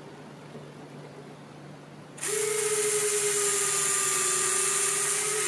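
A radio-controlled Spitfire model's retractable landing gear folding up while its canopy slides shut, driven by small motors. The steady mechanical whine starts about two seconds in and runs for about three and a half seconds, its pitch dipping slightly near the end.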